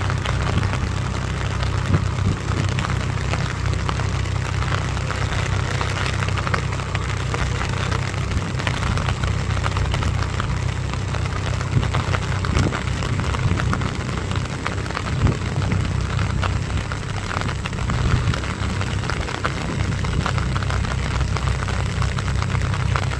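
Swaraj tractor's diesel engine running steadily as it pulls a rotary tiller through a flooded paddy field. Rain falls on the water throughout, as a steady hiss with many small drop ticks.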